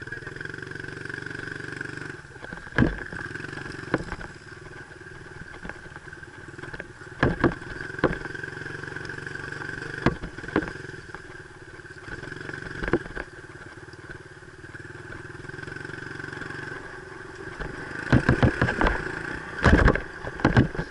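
Dirt bike engine running at a steady low speed along a rough trail. Sharp knocks and rattles come every second or two and bunch together near the end.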